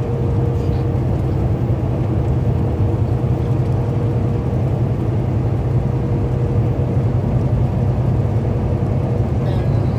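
Steady low drone of a truck's engine and tyres at highway speed, heard inside the cab, with a faint steady hum riding over it.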